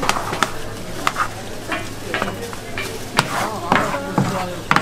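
Two ladles stirring tteokbokki in a large steel pan, knocking and scraping against the metal several times a second, over a steady low hum.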